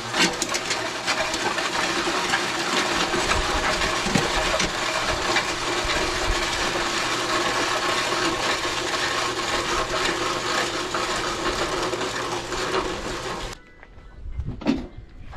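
Mud Mixer concrete mixer running, with a steady gritty rattle of concrete mix churning through it over a low motor hum. It stops abruptly near the end.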